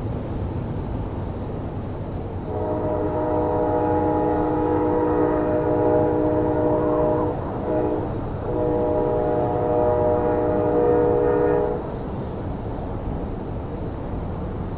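Locomotive multi-chime air horn sounding a chord in two long blasts with a short break between them, over a steady low railyard rumble. Two long blasts is the standard railroad signal for releasing brakes and proceeding.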